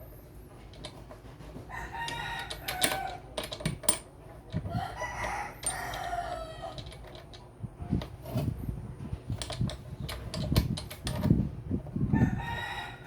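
A rooster crowing three times, along with scattered clicks, knocks and low thumps.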